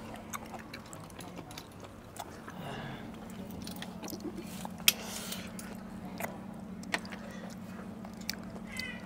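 Close-up eating of cooked sea snails: chewing, with sharp clicks now and then, the strongest about five seconds in, over a steady low hum.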